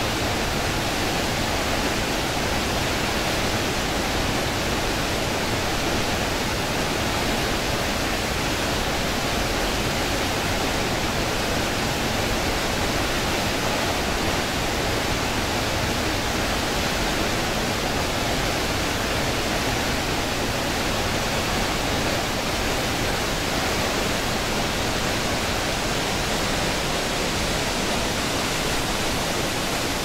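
Waterfall pouring down a narrow rock gorge into a churning pool: a steady, even rush of falling water.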